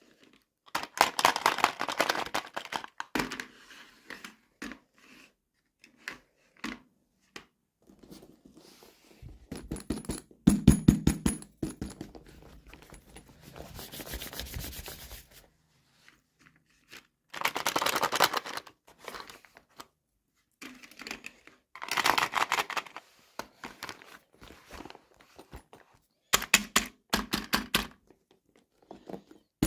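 Plastic toy packaging being handled and torn open, in bursts of crinkling and crackling with short pauses between.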